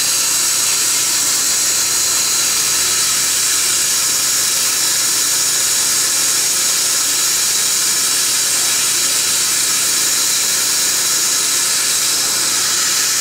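Steady, even hiss of dental equipment working in the mouth: suction together with the air-water spray of an Er,Cr:YSGG Waterlase laser handpiece.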